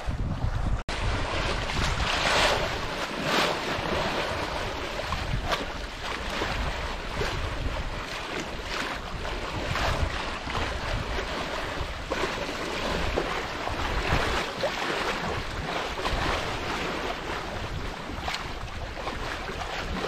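Water rushing and splashing along the hull of a Beneteau First 40.7 sailboat moving under sail, in irregular surges, with wind buffeting the microphone.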